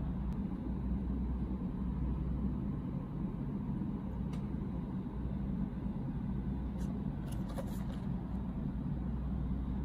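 Steady low background rumble, with a few faint taps and rustles of a cardboard snack box being handled, clustered about seven to eight seconds in.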